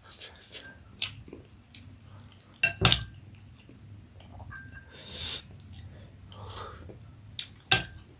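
Close-up eating sounds of jhol momo: soft chewing, with sharp clinks of a utensil against a dish, loudest about three seconds in and again near the end, and a short breathy noise about five seconds in.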